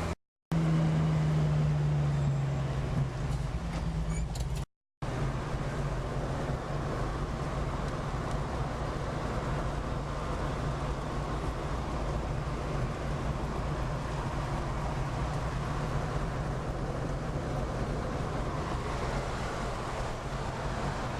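A Jeep's engine running with tyre and road noise while driving, a steady low hum. Between one and three seconds in, the engine note eases down. The sound cuts out completely twice, briefly, about half a second in and about five seconds in.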